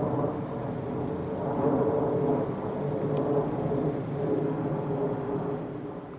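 Amtrak NextGen Acela trainset running, a steady rumble with a held whine that eases off near the end.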